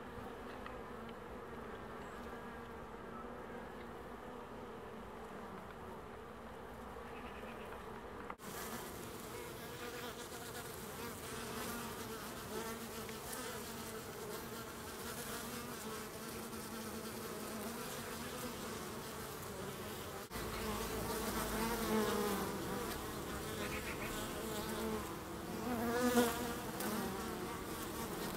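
Honeybees buzzing in numbers at a busy hive entrance: a steady hum of many wings. It grows louder in the last few seconds as bees fly close by, their pitch rising and falling as they pass.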